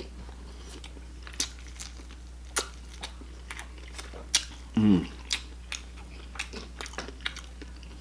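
Close-miked biting and chewing of soft Dungeness crab shell, with sharp cracks and crunches scattered through. About five seconds in comes a brief hum from the eater that falls in pitch.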